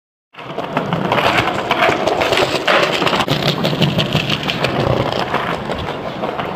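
Skateboard wheels rolling over hard paving, a loud, rough rumble broken by many quick clicks and knocks.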